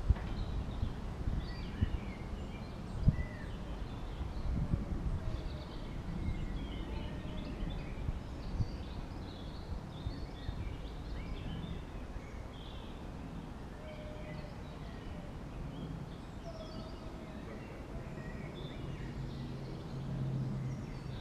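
Garden ambience with several birds singing and chirping in short scattered calls. Low rumbling bumps come through in the first few seconds, and a steady low hum comes in near the end.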